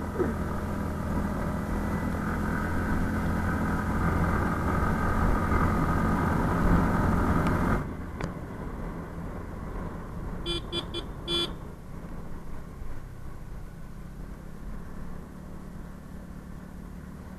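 Motorcycle riding on a wet mountain road: steady engine and wind noise that drops suddenly to a quieter level about eight seconds in. A few seconds later a vehicle horn gives a quick run of short beeps.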